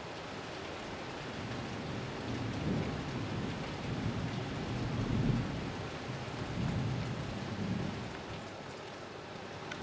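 Steady rain with a low rolling rumble of thunder that swells about two seconds in, peaks midway and dies away near the end.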